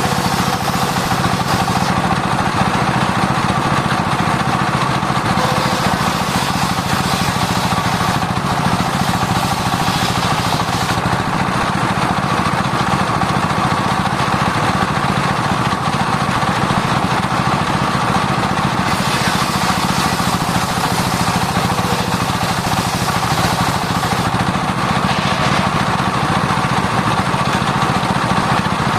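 Sawmill circular saw running steadily while it saws sengon wood. The upper hiss of the cut rises and falls several times as the blade works through the wood.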